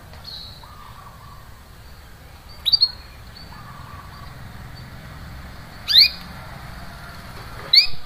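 Domestic canary giving short, sharp, rising 'cuit cuit' call notes: a quick cluster about three seconds in, then single chirps about six seconds in and near the end, with fainter drawn-out notes between them.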